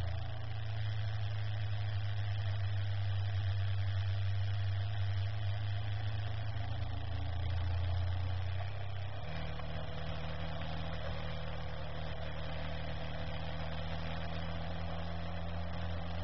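Car engine and road noise heard from inside the cabin: a steady low drone that steps up to a higher note about nine seconds in.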